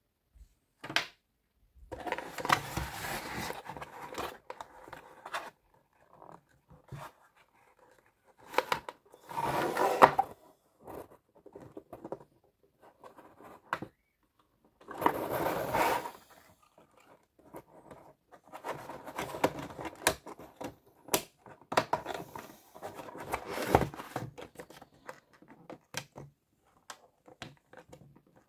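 Cardboard toy packaging being handled: irregular bursts of cardboard scraping and rustling, with a few sharp clicks between them.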